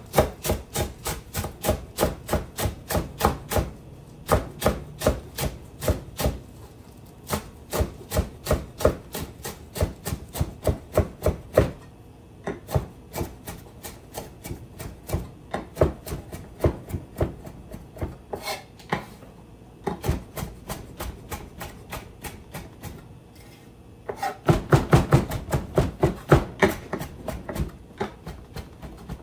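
Chef's knife chopping fresh parsley very small on a cutting board: quick, evenly spaced knocks of the blade on the board, several a second, with a few short pauses and a faster, denser run near the end.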